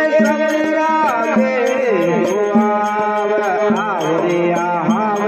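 Instrumental interlude of a Hindi devotional song (bhajan): a melodic lead with ornamented glides and bends over a steady drone, with hand-drum strokes keeping the beat.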